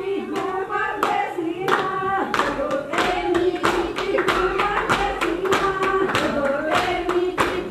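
A group of women singing a Punjabi folk song together, clapping their hands in a steady rhythm of about three claps a second.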